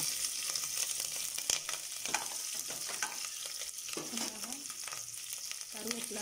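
Green chillies and whole spices sizzling in hot ghee and vanaspati in a pressure cooker: a steady frying hiss, with a few light clicks.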